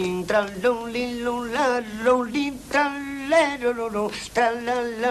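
A man singing wordless flamenco-style syllables, holding long notes and ornamenting them with quick wavering turns.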